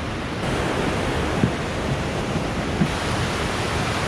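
Mountain stream rushing over boulders: a steady roar of white water that gets a little louder about half a second in, with two brief knocks about a second and a half and three seconds in.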